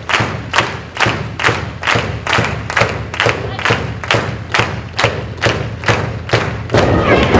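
Audience clapping together in a steady rhythm, about two claps a second. Near the end there is a louder, denser burst, fitting a wrestler being slammed onto the ring mat.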